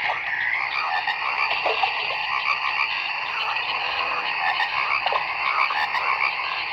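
Recorded babbling-brook nature sound played back from a Timex alarm clock's built-in sound setting: a steady, even rush of running water with a few short calls over it.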